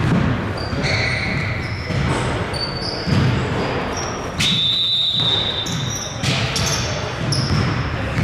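Basketball game play in a gym: a ball bouncing on the court in repeated low thuds, sneakers squeaking in short high chirps, and a longer steady high squeal near the middle, over voices in an echoing hall.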